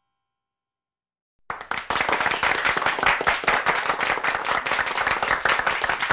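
A group of people applauding. The clapping starts suddenly after about a second and a half of silence and keeps up at an even level.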